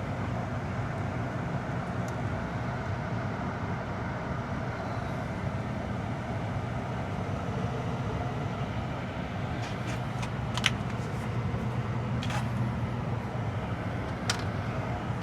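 Steady low motor hum from a gas furnace. A few sharp clicks come in the last few seconds.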